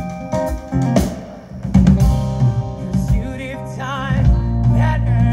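Live band playing: sustained electric and acoustic guitar notes, then a hit about a second in and the full drum kit coming in hard, with singing over it from about three seconds in.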